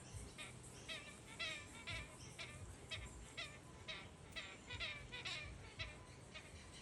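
Galah giving its unusual call: a steady run of short, pitched calls, about two a second, fairly faint.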